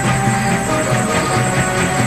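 Background music score with held sustained notes over a pulsing low part.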